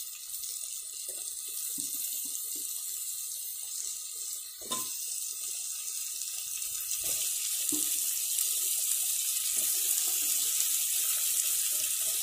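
Hot oil and masala sizzling in an aluminium pressure cooker as raw mutton pieces are dropped in, a steady hiss that grows louder about seven seconds in, with a few soft knocks as pieces land.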